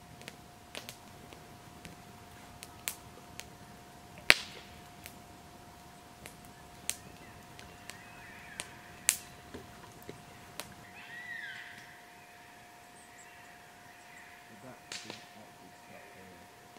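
Wood campfire crackling with sharp, irregular pops and snaps, the loudest about four seconds in and another about nine seconds in.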